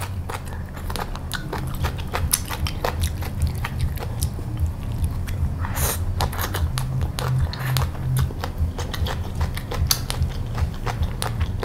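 A person chewing a mouthful of boiled water spinach and rice close to the microphone: a steady run of small crisp crunches and mouth clicks.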